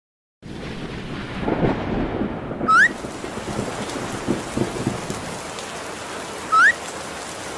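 Rain-and-thunder sound effect: a steady hiss of rain begins suddenly about half a second in, with low rolling thunder rumbles in the first few seconds. A short rising blip sounds twice over it.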